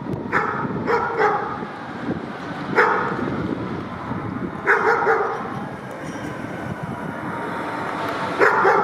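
Dalmatian barking repeatedly in short, irregular bursts, about eight barks, over steady street background noise.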